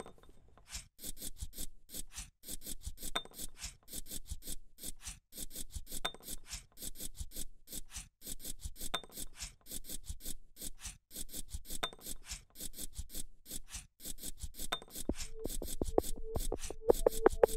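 Chalk rubbing and scraping on weathered wooden boards in quick, repeated strokes, several a second. Near the end a pulsing music tone comes in over it.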